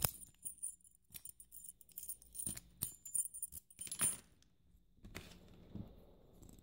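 Keys jangling on their ring and sharp metal clicks as an Am-Tech padlock is tried with its key, a few separate clicks with the loudest right at the start and about four seconds in.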